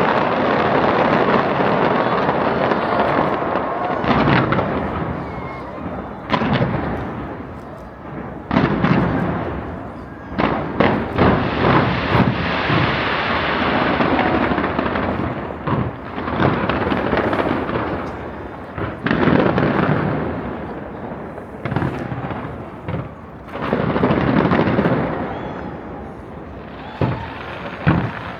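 Large aerial fireworks display: continuous booming and crackling of shell bursts, swelling and fading in waves. There are clusters of sharp bangs around the middle and again near the end.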